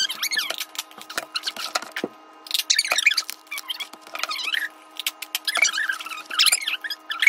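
High-pitched chipmunk-like squeaking chatter with quick clicks, the sound of speech and handling noise played back fast-forwarded.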